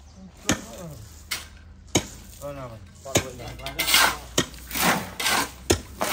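Metal utensils and dishes knocking and scraping against pots while cooking: a few sharp knocks, then from about three seconds in a run of quick repeated scrapes.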